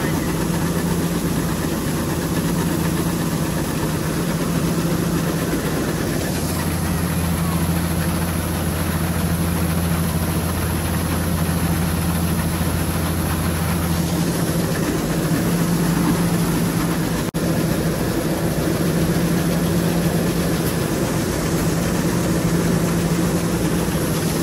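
Combine harvester's engine running steadily with a low, even hum. A deeper drone joins for several seconds in the middle, and the sound cuts out for an instant about two-thirds of the way through.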